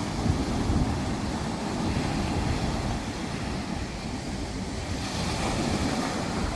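Ocean surf on a sandy beach, with wind buffeting the microphone in low rumbles. About five seconds in, the hiss of a wave washing up the sand swells.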